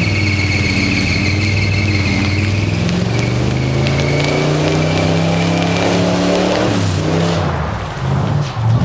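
Chevrolet Trailblazer SS 6.0-litre V8 running, its pitch rising and falling slowly as it is revved, with a steady high whine over it for the first six seconds or so.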